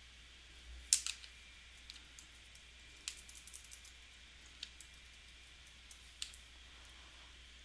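Scattered keystrokes on a computer keyboard as a word in a text field is deleted and retyped. There is a single sharp tap about a second in, a short run of taps about three seconds in and a few more later, over a faint steady low hum.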